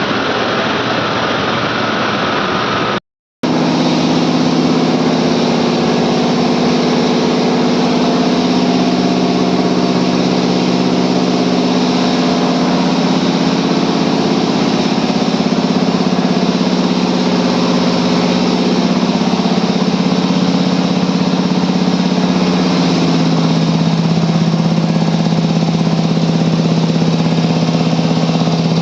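Medical air compressors running steadily with a loud, even machine hum. The sound cuts out completely for a moment about three seconds in, and the hum steps slightly lower in pitch later on.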